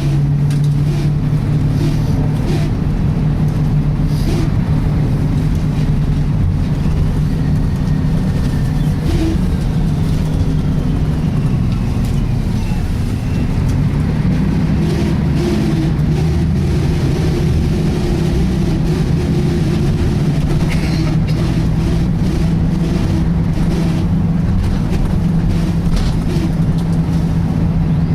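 Inside a Wright Renown bus on a Volvo B10BLE chassis with a Voith automatic gearbox: a steady drivetrain drone with many small rattles and knocks, and faint tones sliding in pitch about a third of the way in. This is the loud 'sweeping' noise of a serious fault, which the uploader ties to the Voith gearbox.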